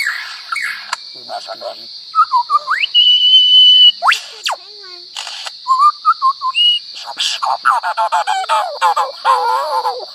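A mimicking bird running through a string of varied calls: short bent whistles, a held high whistle, a sharp falling sweep, then a fast rattling run of rapidly repeated notes in the last few seconds.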